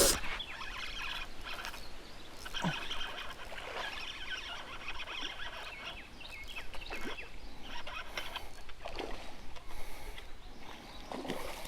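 Outdoor riverside sound: birds chirping again and again, with scattered clicks and knocks over a low steady background noise.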